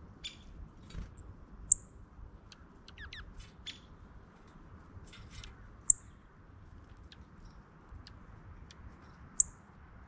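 Songbirds calling: three sharp, high chip notes, much louder than everything else and a few seconds apart, with fainter chirps and a brief wavering twitter between them.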